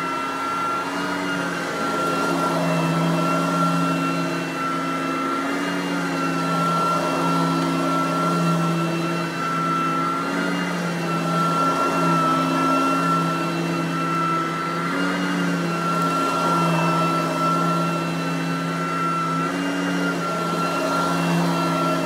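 Riccar Supralite Sand Trap lightweight upright vacuum running on carpet, its motor giving a steady high whine while the brush roll works the pile. The pitch dips slightly now and then as it is pushed back and forth.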